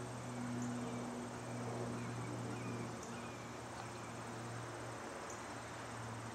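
Quiet outdoor background: a steady low hum with a few short, faint high chirps scattered through it.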